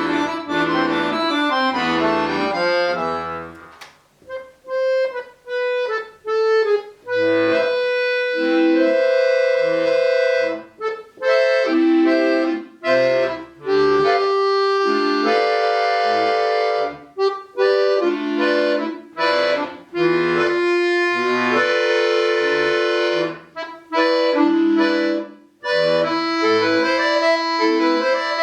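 Solo accordion music: phrases of short detached notes alternate with longer held chords, with a couple of brief breaks between phrases.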